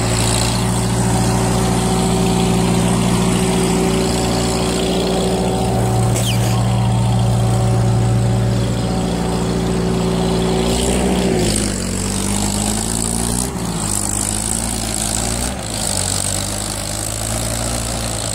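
1947 Farmall H's four-cylinder engine running steadily while the tractor carries a round bale on its front-end loader through deep mud. About eleven seconds in, its pitch drops and wavers as the load on it changes.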